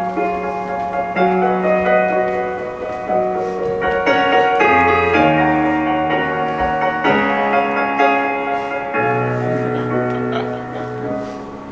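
Instrumental music with a piano playing slow, held chords that change every second or two.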